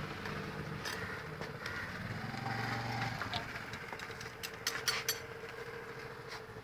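A steady engine-like hum, with a few light clicks about four to five seconds in.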